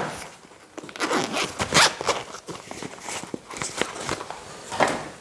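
The zipper of a clamp meter's soft carrying case is pulled open and the meter is handled out of the pouch: a run of uneven rasping and rustling noises with small clicks.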